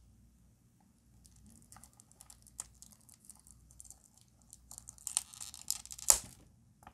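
Clear plastic shrink-wrap on a small cardboard toy-car box being handled and picked open: faint ticks and crinkles that build into a burst of crinkling, with one sharp snap about six seconds in.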